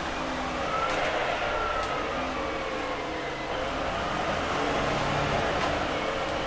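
Iveco Urbanway 12M city bus driving, heard from inside the passenger cabin: a steady engine and drivetrain drone with a whine that rises and falls in pitch as the bus changes speed, and a few light clicks and rattles.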